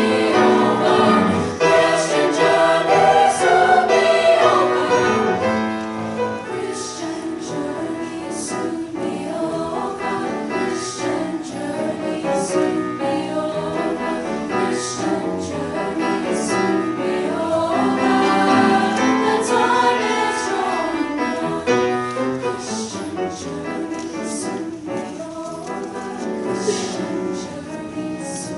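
Treble choir of upper voices singing a spiritual with grand piano accompaniment, loudest in the first six seconds and then somewhat softer.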